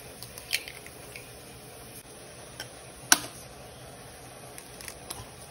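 Hen's eggs being cracked open with a kitchen knife over a glass bowl: a few short sharp clicks of blade and shell, the loudest about three seconds in.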